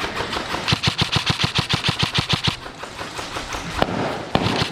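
Airsoft gun firing on full auto: two long bursts of rapid, evenly spaced shots, with a short break between them.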